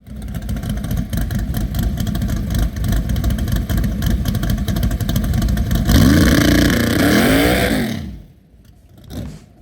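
The engine of an all-motor (naturally aspirated) Mustang drag car running loud and rough, then revved up and back down twice in quick succession. The sound drops off sharply near the end.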